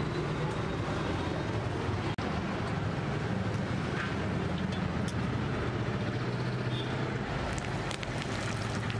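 Steady low rumble with a hiss over it, the background noise of a roadside street stall. The sound drops out for an instant about two seconds in, and a few faint crackles come near the end.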